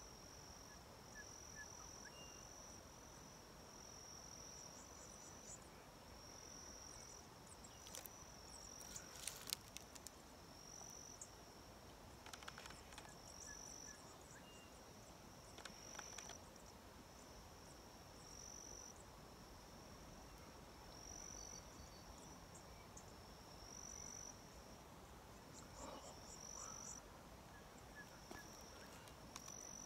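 Near silence, in which an insect calls in short, high-pitched trills repeated about every two seconds. A few faint clicks fall around the middle.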